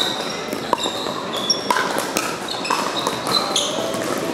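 Pickleball paddles popping against the plastic ball in rallies, with sneakers squeaking briefly on the hardwood court and a murmur of voices behind.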